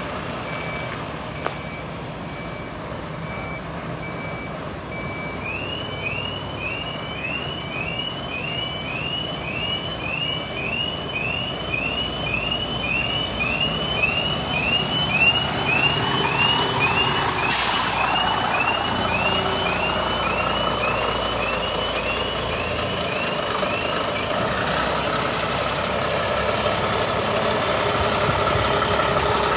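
Scania P92M fire engine reversing with its diesel engine running: the reversing alarm gives short level beeps about once a second, then switches to rising chirps almost twice a second, which stop a few seconds before the end. Partway through, a short sharp hiss of air from the air brakes.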